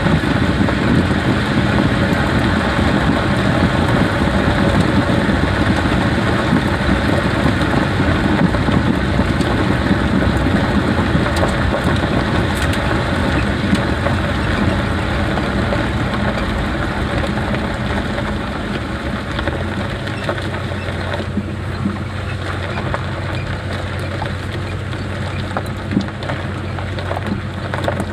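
Jeep driving, heard from inside: rough tyre and road noise over the engine. About two-thirds through the noise eases and a steady low engine hum comes through.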